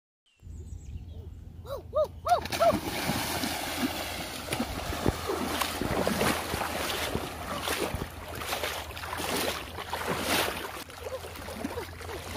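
Water splashing and sloshing as a person wades through shallow, waist-deep floodwater, starting about two seconds in and going on in uneven surges. A few short high chirps sound just before the splashing begins.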